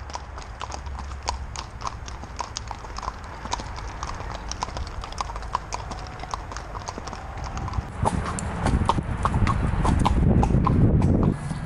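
Several horses' hooves clip-clopping at a walk on an asphalt road, their steps overlapping in a steady patter of clicks. About eight seconds in, a louder low rushing noise joins the hoofbeats and stops shortly before the end.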